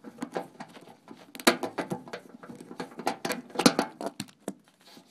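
Irregular clicks, taps and light knocks of hand tools and parts being handled while working under a washing machine's bottom panel, loudest just over three and a half seconds in.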